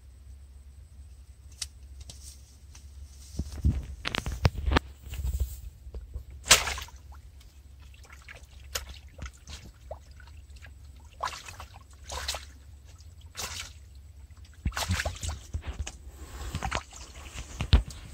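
A wet nylon mesh fishing net being handled: irregular rustling, dripping and splashing, in bursts, over a steady low rumble.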